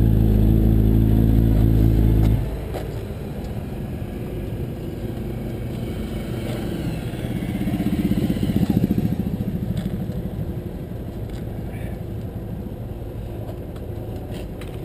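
Motorcycle engine idling steadily, then switched off about two seconds in, leaving background noise. Around the middle, another engine's sound swells and fades.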